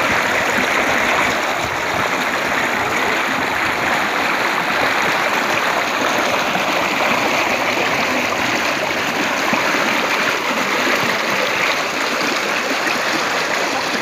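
Muddy floodwater from heavy rain rushing fast and turbulent down a swollen channel: a loud, steady rushing.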